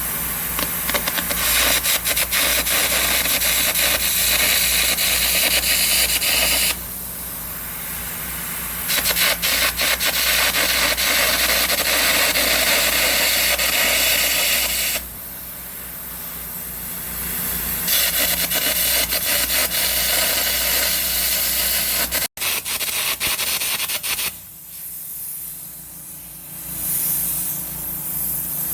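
Air carbon arc gouging with a 3/16-inch carbon electrode at about 250 amps: a loud crackling hiss as the arc and compressed-air jet blow out weld metal, in three long runs broken by short pauses. The Miller Trailblazer 325 engine-drive welder hums steadily underneath.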